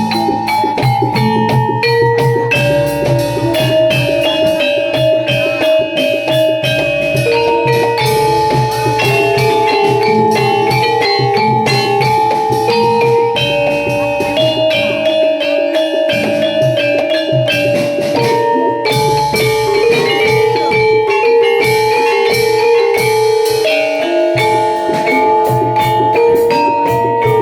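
Javanese gamelan ensemble playing jaranan (kuda lumping) music: fast, dense drumming under a stepping melody of held metallophone-like notes.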